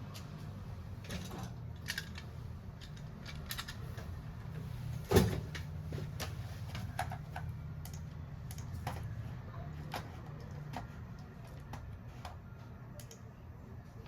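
Small clicks and taps of tools and phone parts being handled on a workbench, with one louder knock about five seconds in, over a steady low hum.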